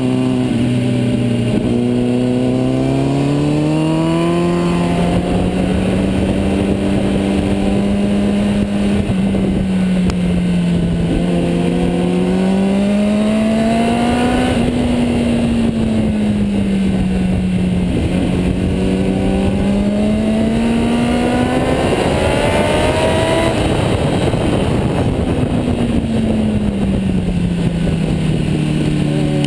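Kawasaki Ninja sport bike engine heard from on board at speed, its pitch climbing under acceleration and falling as the rider eases off and shifts, several times over, with a steady wind rush underneath.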